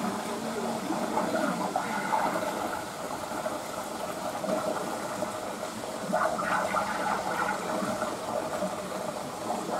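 Steady rush of running water in a beaver pool, with a busier, louder stretch about six seconds in.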